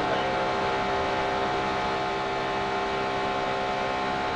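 NASCAR Nationwide Series stock car V8 engine running flat out in the draft, a steady drone whose pitch does not change, picked up by a car-mounted camera.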